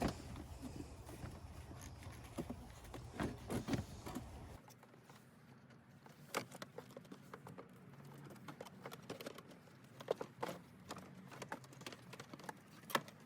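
Scattered light knocks and clicks of a part being handled and fitted into place in a car's engine bay, with a few sharper knocks later on.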